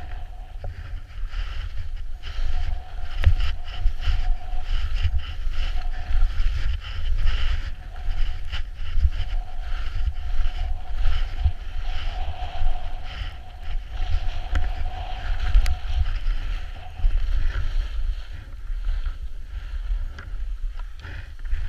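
Wind buffeting the microphone during a downhill ski run, over the steady hiss and scrape of skis sliding on groomed snow; both ease off near the end as the skier slows.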